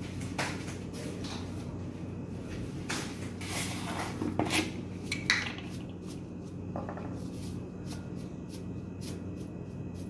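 Kitchen handling sounds: scattered clinks and knocks of containers and a spoon on the counter, a couple of them ringing briefly, over a steady low hum. Near the end comes a light, quick ticking as salt is poured from a plastic jar onto a metal spoon.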